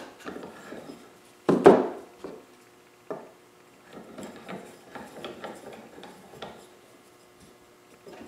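Wood knocking on a workbench and a bench vise being worked: one loud wooden clunk about one and a half seconds in, then a string of smaller knocks and rattles as a wooden sanding stick is clamped in the vise.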